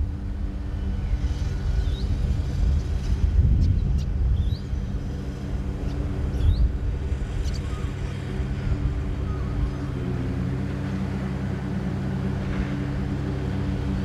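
A steady motor drone, a few even tones that shift in pitch about ten seconds in, over an uneven low rumble; a handful of short, rising bird chirps sound in the first half.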